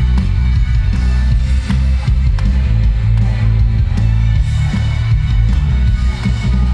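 Instrumental introduction of a pop-rock song played loud, with heavy bass and a steady drum beat; no singing yet.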